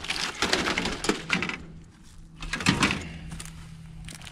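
Footsteps crunching over gravel and junkyard debris, with a sharper knock a little under three seconds in.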